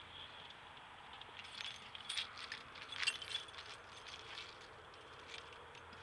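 Light metallic jingling and clinking of small loose objects, such as a set of keys, in scattered bursts, thickest about two to three seconds in.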